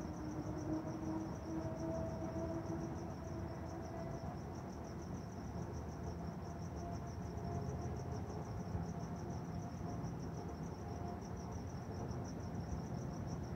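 Crickets chirping in a steady, rapid high-pitched trill, over a low background rumble with a faint hum.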